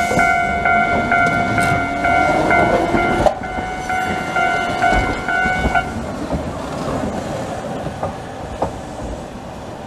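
Level-crossing warning bell ringing as a rapid electronic ding about three times a second, stopping about six seconds in, while Hankai Tramway car 501 pulls away and runs past. After the bell stops the tram's running noise fades, with scattered clicks from the wheels on the rail joints.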